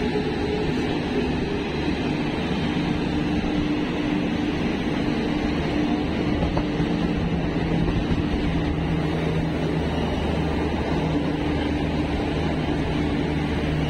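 A steady drone from a locomotive's engine, with a held low hum, over the continuous rumble of a train running on the rails.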